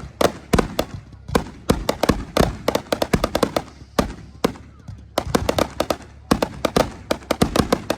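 Fireworks going off: many sharp bangs and crackles in quick irregular clusters, with short pauses between runs.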